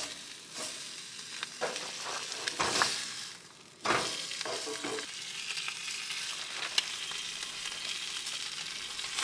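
Food sizzling and frying in a pan on a camp stove, with a spatula now and then scraping and knocking against the pan.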